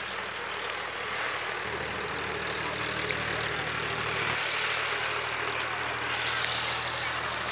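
Road traffic: a motor vehicle engine running with a steady low hum, over a broad, even hiss of traffic.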